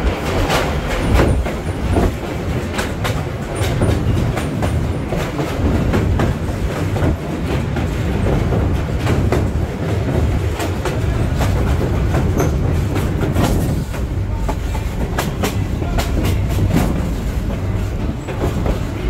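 Passenger train's open-air coach rolling along the track: a steady wheel rumble with scattered clicks and clacks over the rails, as the car crosses a steel truss bridge.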